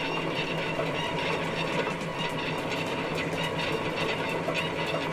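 Inoue U60 three-roll mill running, its motor and roll drive giving a steady mechanical hum with a fast, light clicking rattle.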